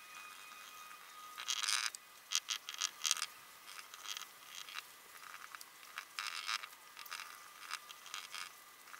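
Paintbrush dabbing and scrubbing resin into glass-fibre matting on a fibreglass car body panel: irregular runs of short scratchy strokes, busiest about two to three seconds in and again around six seconds in.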